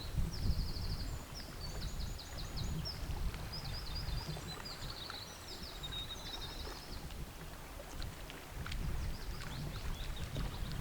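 A small songbird sings a quick, twittering song of short high trills, which stops about seven seconds in, over a steady low outdoor rumble. A few faint scattered chirps and ticks follow near the end.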